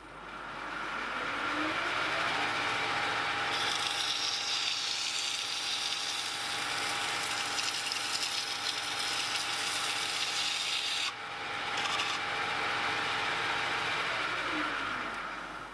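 Lathe motor spinning up, running steadily and spinning down again near the end, with a strip of stiff emery abrasive rasping against the turning former for a few seconds in the middle to take off its high spots.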